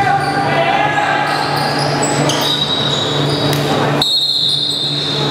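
Basketball game sounds on a hardwood gym floor: sneakers squeaking, the ball bouncing and players' voices, echoing in a large hall over a steady low hum. The sound changes abruptly about four seconds in.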